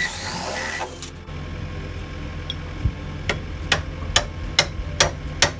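A hammer strikes six times, evenly, about two blows a second, over a low steady engine hum. A brief rush of noise comes in the first second.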